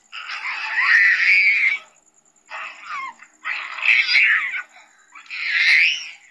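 A toddler crying and screaming in four loud bursts with short breaks between them.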